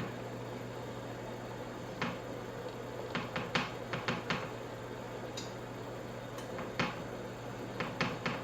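Irregular light clicks and taps of a brush dabbing melted butter onto a blanched whole cauliflower head, over a steady low hum.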